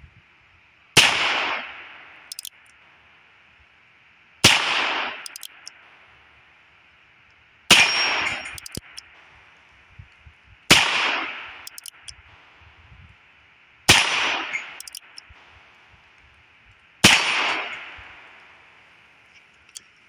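Six shots from a Heritage Rough Rider single-action .22 LR revolver, about three seconds apart, each ringing off briefly. Each shot is followed by light clicks of the hammer being cocked for the next.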